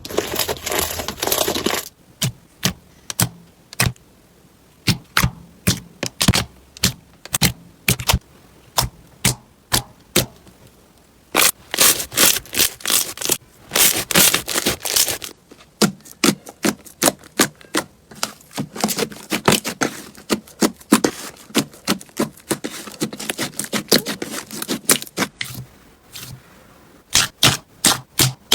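Slime being pressed and squeezed by hand, giving irregular runs of sharp pops and crisp crackles, densest about halfway through.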